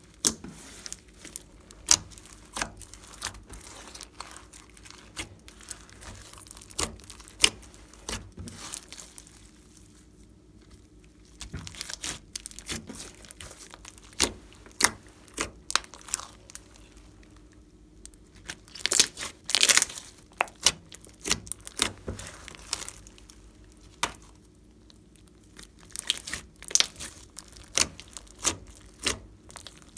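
Hands kneading and squeezing a large mass of foamy slime, making irregular sticky pops and crackles, with a dense run of loud pops about two-thirds of the way through.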